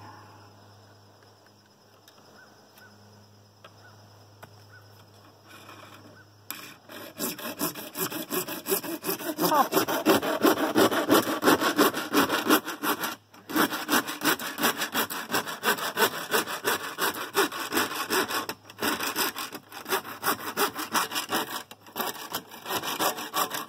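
Small hand saw cutting through PVC pipe in rapid back-and-forth strokes. The sawing starts about six seconds in and stops briefly a few times.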